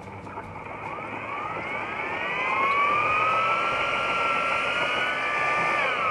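Electric motor of a concrete-mixing tool whining up to speed about a second in, running at a steady high whine, then winding down at the end.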